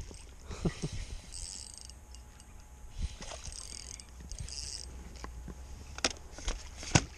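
Spinning reel cranked in short bursts with a fish on the line, its gears whirring during each turn of the handle; two sharp knocks near the end, the second the loudest sound.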